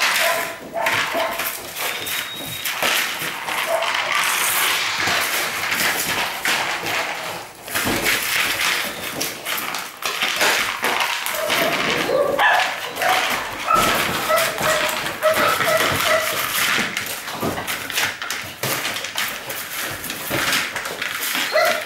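Puppy eating from a bowl on a tile floor, giving short whines and yelps that come often in the second half, over chewing and the bowl knocking and scraping on the tiles.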